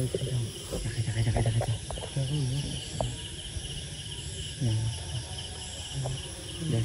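Crickets chirping in steady, evenly pulsed trills, with quiet low voice sounds underneath.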